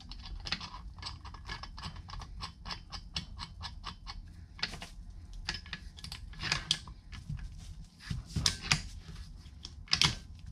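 Light metal clicks and rattles from fitting an abrasive drum onto the shaft of a Bauer surface conditioning tool and turning its retaining nut with a small metal pin: a quick run of light ticks, about five a second, for the first few seconds, then a few separate louder clicks.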